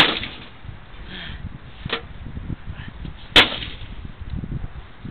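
Sledgehammer smashing down on a computer case: two loud bangs about three and a half seconds apart, with a lighter knock between them.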